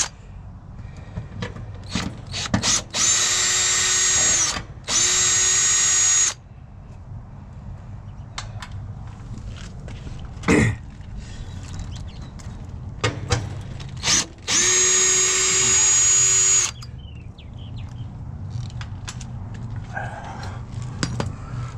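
Cordless drill-driver running in three short bursts of a second and a half to two seconds each, at a steady speed. Between them come clicks and knocks from handling parts, with one sharper knock about halfway through.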